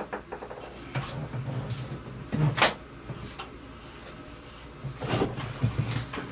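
Several separate knocks and clunks of hard parts and wooden table pieces being handled and shifted by hand, the loudest about two and a half seconds in and a small cluster near the end.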